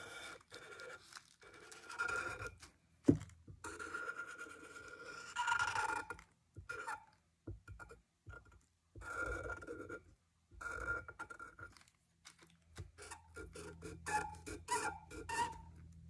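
Felt-tip permanent marker drawn over tracing paper on a bisque plate: short, uneven scratching strokes with pauses between them, some carrying a thin squeak. One sharp knock about three seconds in.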